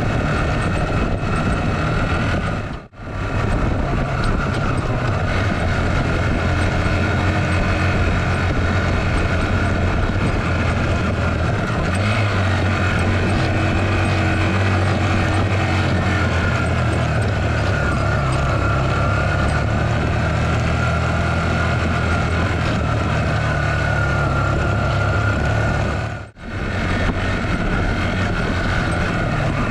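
Small 10-horsepower motorcycle engine running steadily under heavy load, hauling about 140 kg of water uphill in low gear at high revs. The pitch shifts a little now and then, and the sound breaks off for a split second twice.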